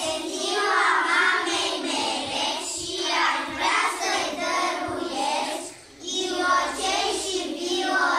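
A group of young children singing together in unison, with a short break between lines about six seconds in.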